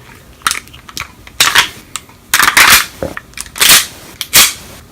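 Airsoft 1911 Hi-Capa pistol being handled and worked: a series of short, irregular clacks and scrapes from its metal slide and parts, one longer scrape about halfway through.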